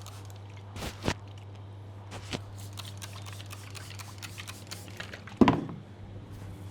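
Massage taps and clicks on the head and neck: a few sharp clicks early on and one louder knock about five seconds in, over a steady low hum.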